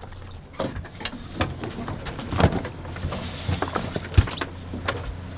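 A boat engine idling with a steady low hum, under irregular clicks and knocks from the boat and the fishing gear.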